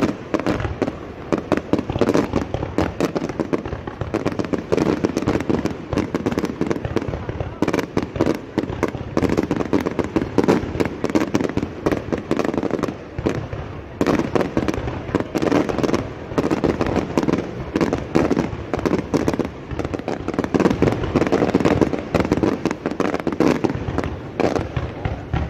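Fireworks going off in a fast, continuous run of crackling and popping, with no pauses.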